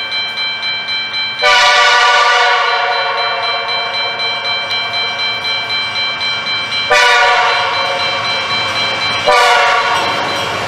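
Grade-crossing warning bell ringing in rapid, even strokes while an approaching freight locomotive sounds its multi-chime air horn for the crossing: a long blast starting about a second and a half in, a second blast about seven seconds in, and a third near the end.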